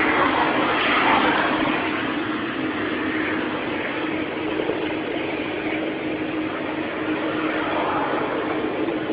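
Excavator engine running steadily, with a constant hum throughout and a slight swell in the first second or two.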